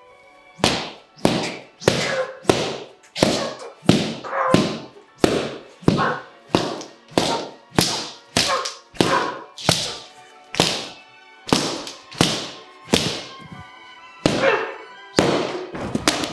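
A wooden pole banging hard and repeatedly, about twenty heavy strikes at a little over one a second, each with a short ringing tail, over quiet background music.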